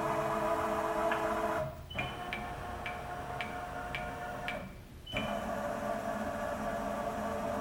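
ProtoTrak CNC milling machine's axis servo drives whining steadily as the table moves through a bolt-hole-circle program, in three moves with short pauses between them. Light ticks come about twice a second during the middle move.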